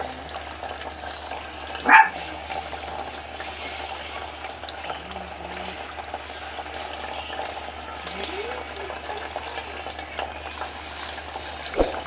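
Water from a homemade plastic-bottle tabletop fountain trickling steadily down its spouts into the bowls and basin below. A short, sharp, loud sound cuts in about two seconds in, and a smaller one near the end.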